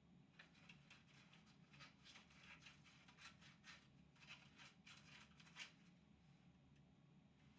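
Faint hand sanding: sandpaper rubbed in quick strokes over a 3D-printed PLA helmet part, a scratchy stroke every fraction of a second, stopping about six seconds in, over a low steady hum.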